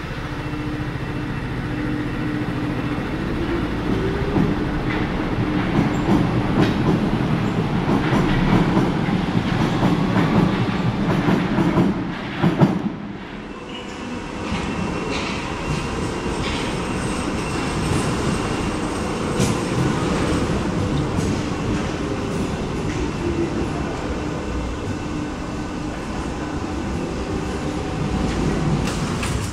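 Paris Métro MF77 steel-wheeled train moving alongside the platform: traction motor whine gliding up and down in pitch over wheel and rail noise, with a brief dip and one sharp knock about twelve seconds in.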